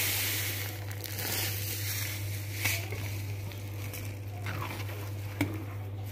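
A spatula stirring sugar into a pan of thick cooked mung bean paste, with soft scraping and squishing and a couple of sharp knocks against the pan, one about midway and one near the end.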